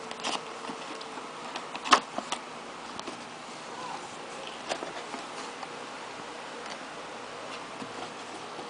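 Handling noises: scattered light clicks and taps over a steady hiss, the sharpest about two seconds in.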